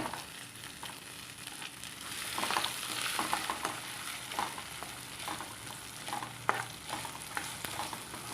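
Soaked, drained basmati rice sizzling in hot ghee in a pan while a spoon stirs it, with scattered clicks and scrapes of the spoon against the pan. The sizzle swells about two seconds in.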